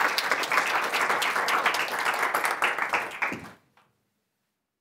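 Audience applauding, dense clapping that fades quickly to silence about three and a half seconds in.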